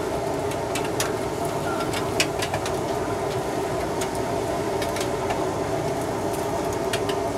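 Metal tongs clicking and tapping now and then against a flat griddle and the Taiwanese sausages grilling on it, over a steady hum.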